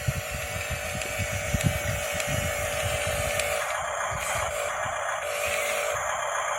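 Electric drive of a radio-controlled model bulldozer running with a steady whine, over an irregular low crunching clatter of its tracks and blade working dirt. A little past halfway the clatter stops while the whine carries on.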